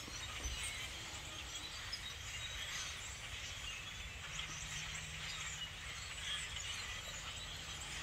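A huge flock of black birds, thousands strong, calling all at once: a steady din of many small overlapping high-pitched calls.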